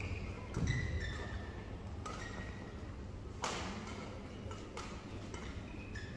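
Badminton rally in a large hall: several sharp racket strikes on the shuttlecock, the loudest about three and a half seconds in, with short high squeaks of shoes on the court floor between them.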